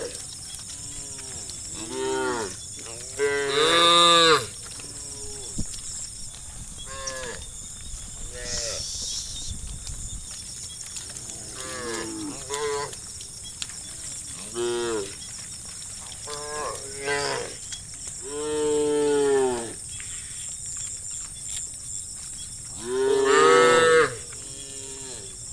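Several cattle mooing, one call after another, some short and some long, with the loudest calls about three seconds in, around eighteen seconds and near the end.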